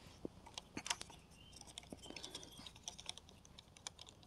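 Faint, irregular clicks and light wooden taps of thin sticks being pressed and fitted by hand into a stacked-stick cage trap under tension.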